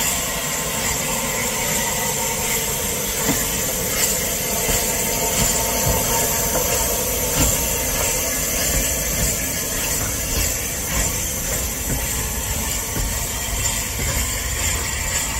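Steam locomotive hissing steadily over a low rumble, with a few faint knocks.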